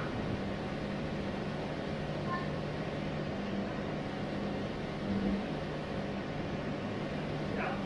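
A steady mechanical hum with a hiss under it, with a brief high chirp about two seconds in.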